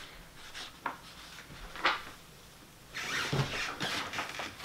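Rustling and shuffling as a person settles onto a bed with a sheet of paper in hand: clothing, bedding and paper brushing. A few short rustles, a sharper one about two seconds in, then a longer stretch of rustling near the end.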